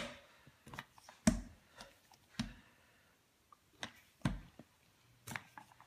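Rolling pin pushed back and forth over tortilla dough on a stone countertop: a run of soft, irregular knocks and thumps, about seven, as the pin rolls and bumps the counter.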